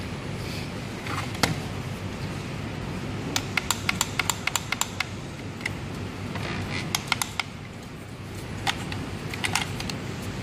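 Sharp plastic clicks and rattles as a handheld security-tag remover gun and a plastic security tag are handled, with a quick run of about eight clicks a third of the way in and scattered single clicks later, over a steady background hiss.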